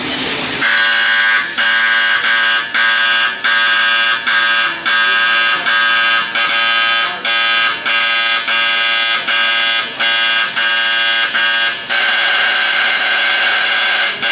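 Electronic alarm buzzer sounding a pulsing tone, beeping about every 0.7 s, then held steady for the last couple of seconds.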